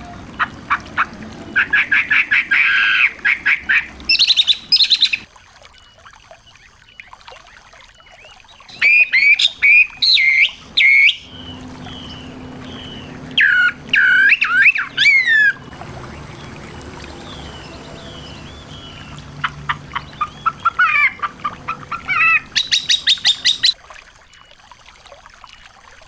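Small songbird singing in loud phrases of fast, rapidly repeated chirps and trills, four phrases with short pauses between them, and a few faint short calls in the gaps.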